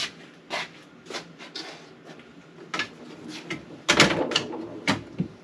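Fridge-freezer slide mount being pushed back in: a run of separate clicks and knocks, with a louder clatter about four seconds in.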